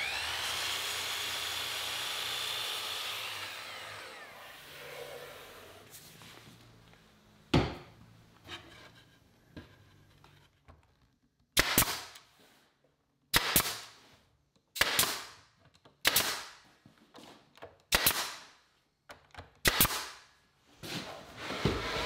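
A power saw spins up with a rising whine, runs and winds down. Then a pneumatic brad nailer fires about seven times, a few at a time, driving 1¾ inch nails to fasten a wooden face frame.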